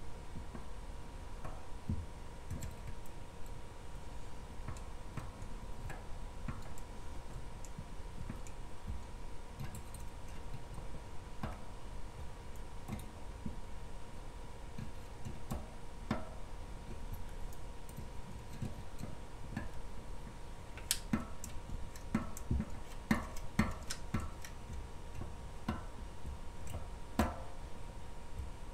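Scattered light clicks and taps from hands pressing and handling a resin printer's vat frame and its stretched FEP film, growing denser and sharper in the last several seconds, over a faint steady hum.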